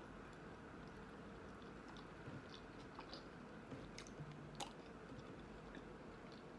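Faint chewing of food, with a few soft, scattered mouth clicks.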